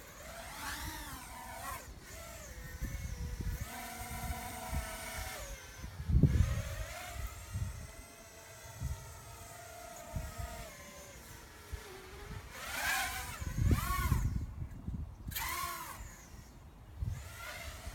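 Motors of an HGLRC XJB 145mm micro FPV racing drone whining in flight, their pitch rising and falling with the throttle, with a low rumble and two loud low bursts, about six seconds in and near fourteen seconds. The drone is making an abnormal noise whose cause is not given.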